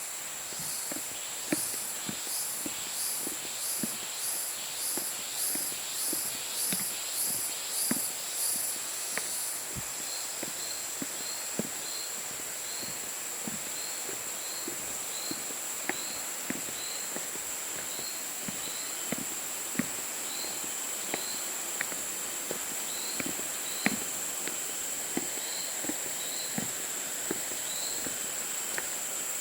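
Forest insects calling: a steady high drone, with a pulsing call about twice a second that stops about nine seconds in, followed by short chirps repeating roughly once a second. Footsteps on the trail make scattered sharp steps throughout.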